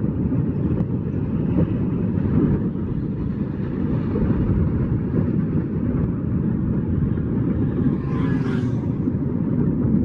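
Wind rushing and buffeting over the microphone of a bicycle coasting downhill at about 36 km/h, a steady low rumble.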